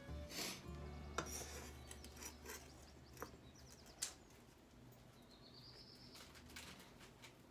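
Knife chopping spring onions on a wooden cutting board: irregular light taps and cuts, more of them in the first half.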